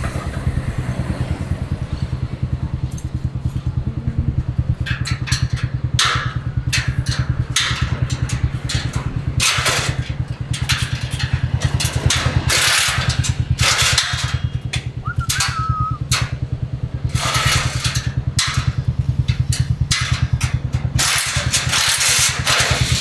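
Motorcycle engine idling with a steady, fast low pulse, with louder noisy rushes at intervals over it.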